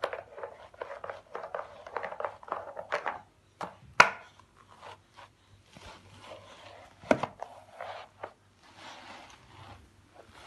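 A small plastic object scrubbed quickly back and forth on a carpet, about four strokes a second for the first three seconds, then a sharp knock about four seconds in and another about seven seconds in, with softer rubbing and shuffling between.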